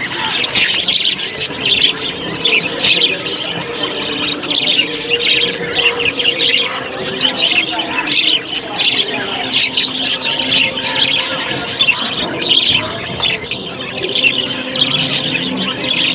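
Budgerigars chattering: a continuous busy twitter of many small chirps and squawks.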